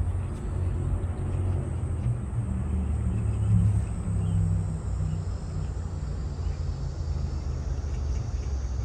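Outdoor ambience dominated by a low, uneven rumble, with a faint steady high whine above it.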